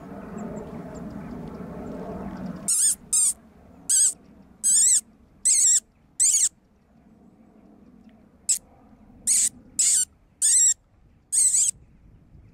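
Rabbit-calling squeak made by mouth, air sucked in through pursed lips: about eleven short, high, warbling squeals in two runs, six then five after a short pause. Used to draw rabbits out of their warren. Low background noise comes before it and stops a little under three seconds in.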